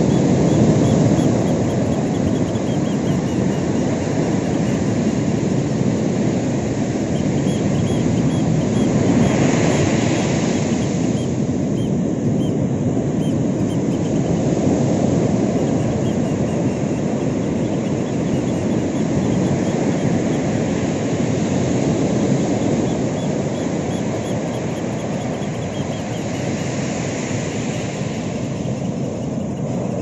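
Ocean surf breaking and washing up a sandy beach: a steady rumble of waves, with louder hissing swells of foam about ten seconds in and again a few seconds before the end.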